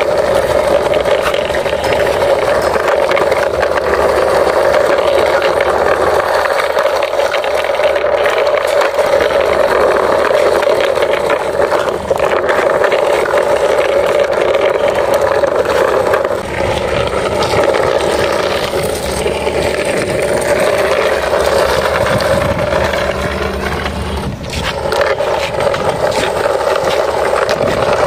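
Steady engine-like drone, continuous with a few brief dips, while a toy army truck is driven along by hand.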